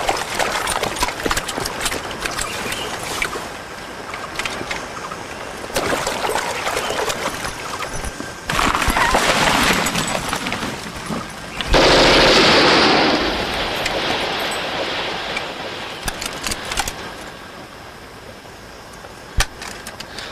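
Battle gunfire: volleys of rifle and machine-gun shots in quick clusters, with soldiers splashing through a stream at the start. The loudest, densest burst comes about twelve seconds in, and the firing thins out near the end, with one last sharp shot.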